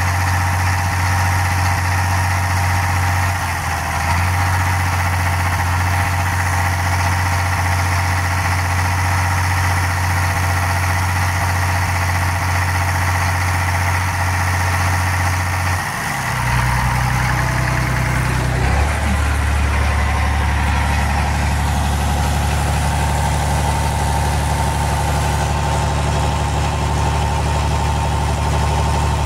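International UD-236 diesel engine idling steadily; about halfway through its note shifts and settles at a lower, deeper pitch.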